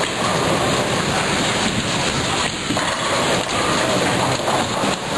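Bowling alley din: a steady, dense rumble of balls rolling down the wooden lanes and pins clattering across many lanes at once.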